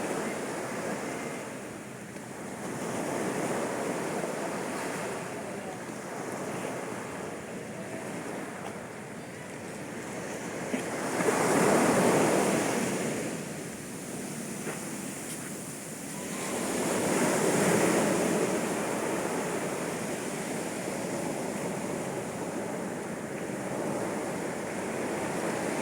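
Sea waves washing up onto a sandy beach at high tide, each wave swelling and fading, with the two biggest breaking about halfway through and again about two-thirds of the way in.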